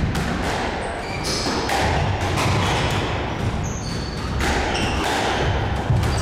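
Squash rally: the hard rubber ball cracking off rackets and the court walls every second or so, with short high squeaks of court shoes on the hardwood floor.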